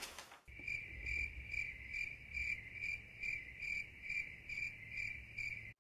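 Insect chirping sound effect, cricket-like: a high, even series of chirps, about two and a half a second, that starts abruptly about half a second in and cuts off just before the end.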